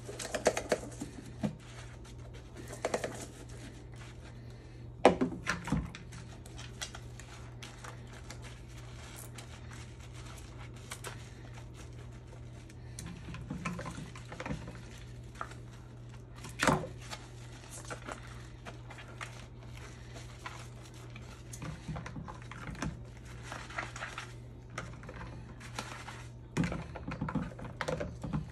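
Plastic baby bottle parts being scrubbed with a bottle brush and soapy sponge over a bowl in a stainless steel sink: scattered clicks, taps and knocks of plastic against the bowl and sink, the sharpest about five seconds in and again near the middle. A steady low hum runs underneath.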